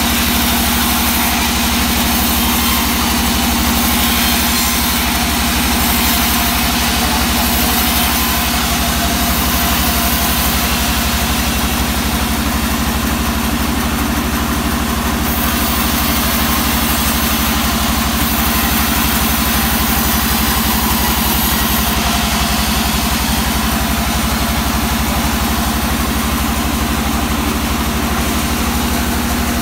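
Vertical band sawmill running steadily, its blade cutting through a hard teak log.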